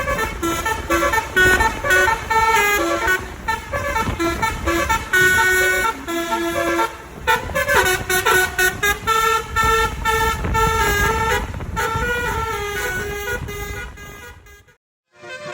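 A tour bus's 'telolet basuri' multi-tone horn playing a quick melody of short notes over the low rumble of the bus. The sound fades away near the end.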